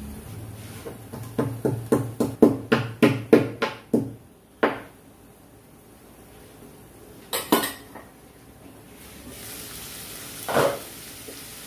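Pestle pounding garlic, ginger and cumin coarsely in a small mortar: about a dozen quick strikes over some four seconds. Then a couple of clinks and, near the end, a single knock of kitchenware.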